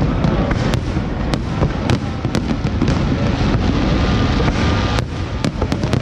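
Fireworks display: a continuous low rumble of shell bursts, with many sharp crackles and pops scattered through it.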